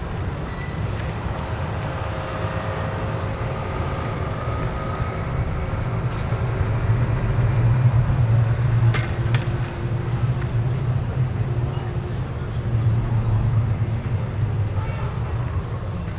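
Road traffic in a city street: a steady low rumble of passing vehicles with a faint engine hum, and two sharp clicks about nine seconds in.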